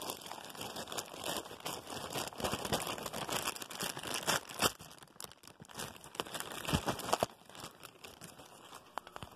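Clear plastic wrapping crinkling and crackling as it is handled close to the microphone. The sound dies down about seven seconds in, leaving a few faint clicks.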